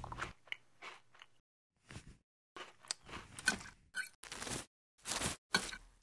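Cutlery cutting into crisp food: a series of short crunching and scraping sounds, a few a second, with dead silence between them. The longest and loudest come in the second half.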